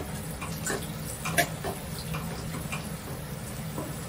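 Kitchen cooking sounds: a few short, light knocks and clinks from utensils over a steady low hum.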